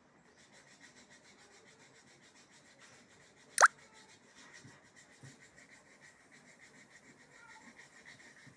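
A single sharp click about three and a half seconds in, over a faint, fast, even ticking that runs throughout.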